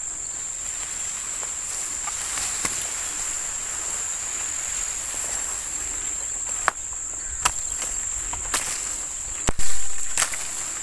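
Insects buzzing in a steady, high-pitched drone, with a few sharp knocks and clicks scattered through it, the loudest near the end.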